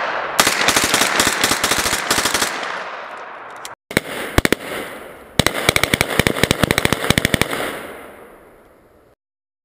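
Heckler & Koch MP5 submachine gun firing on full auto: a rapid burst of about two seconds starting half a second in, then a few separate shots and a second burst of about two seconds near the middle, each burst trailing off in an echo.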